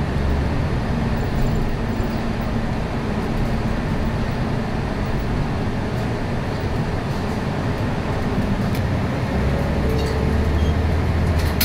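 City bus running, heard from inside the cabin: a steady engine hum under road noise, with the engine hum growing stronger over the last couple of seconds.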